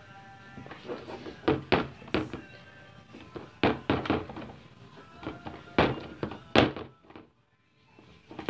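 A series of sharp thunks as slime is worked by hand in a plastic tub on a table, over faint background music. The sound drops to near silence for about a second near the end.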